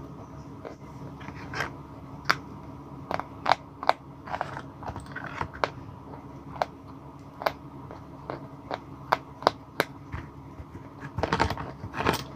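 Sticks of white blackboard chalk being bitten and chewed, with sharp, irregular crunches and cracks. Near the end comes a denser, longer stretch of crunching clatter.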